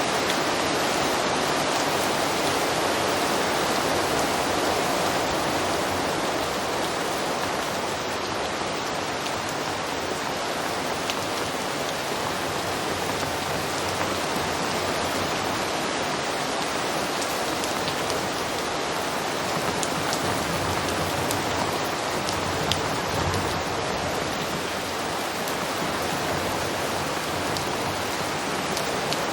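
Heavy rain pouring down in a steady, dense downpour, with scattered individual drops ticking on a surface.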